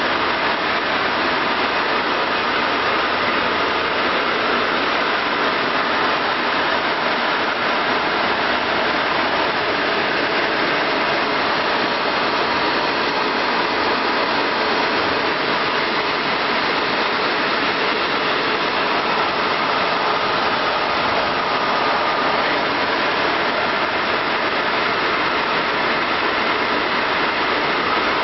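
Blower fan of a silk LED flame machine running steadily: an even rush of air with a faint steady whine.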